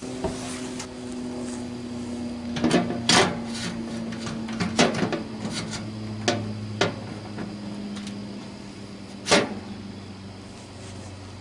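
Metal clanks and knocks as a stainless steel water tank is handled and fitted onto the side of a cylinder wood stove, about six sharp knocks with the loudest near three seconds in and near the end. A steady low hum runs underneath.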